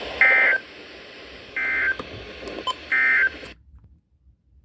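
NOAA Weather Radio's Emergency Alert System end-of-message code: three short warbling data-tone bursts, each about a third of a second long and about a second and a half apart, marking the end of the warning. The receiver's background hiss cuts off suddenly shortly after the third burst.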